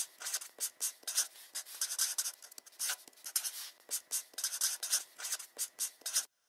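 A marker writing and drawing: many quick, scratchy strokes in an uneven rhythm, as letters and arrows are drawn. It stops abruptly near the end.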